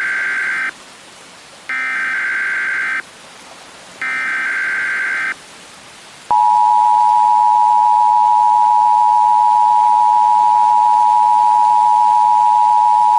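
Emergency Alert System broadcast header: three short bursts of warbling SAME data tones about a second apart, then, about six seconds in, the loud, steady two-tone EAS attention signal.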